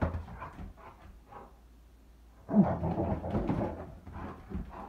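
Red-nose pit bull shaking and thrashing a toy in her mouth on a tile floor, growling as she plays, with a louder stretch of growling and flapping about halfway through.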